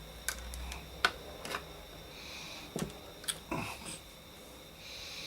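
A series of small sharp clicks and taps, most in the first second and a half and two more about three and a half seconds in: handling of the radio's chassis and fixings on the bench.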